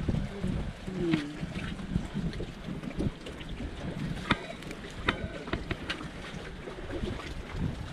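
Wind buffeting the microphone with a steady low rumble, with a few short clicks.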